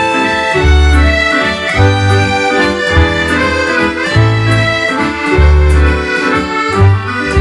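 Scottish dance band playing a waltz: two piano accordions carry the melody over keyboard chords and drum kit. A deep bass note falls at the start of each bar, about every second and a bit.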